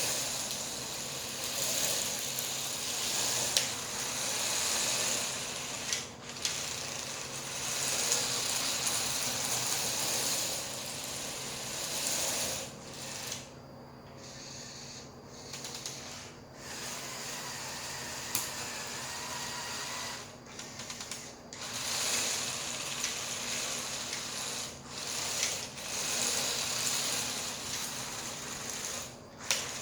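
Lego Technic tracked vehicle driven by two Lego M motors: a steady whir of motors and gears with the plastic tracks clattering, stopping and starting several times, with a longer lull a little under halfway through.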